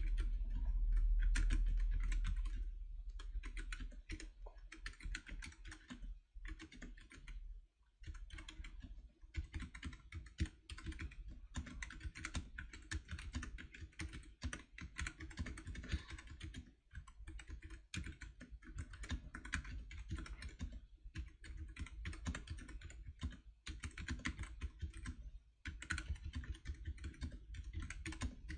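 Typing on a Keychron K3 low-profile optical mechanical keyboard fitted with red optical switches: a fast, irregular run of light key clacks. A low rumble fades out over the first few seconds.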